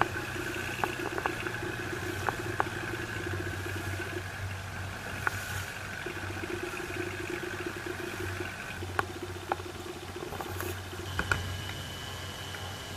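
Boat engine running steadily under way, a low drone with a higher hum over it and occasional sharp clicks. The engine sound changes about eleven seconds in.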